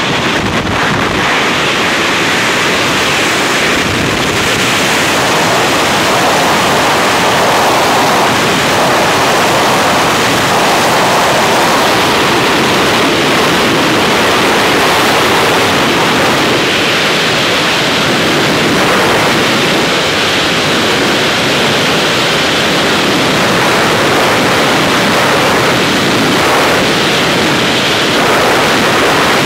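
Loud, steady rush of freefall wind blasting over a skydiving camera's microphone.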